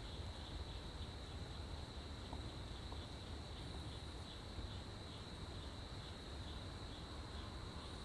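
Night insects chirping in a steady, evenly pulsing high chorus over a faint, constant low rumble.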